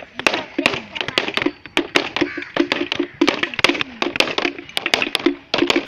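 Rapid, irregular sharp cracks and taps, several a second. Short notes at one steady pitch repeat over and over from about two seconds in.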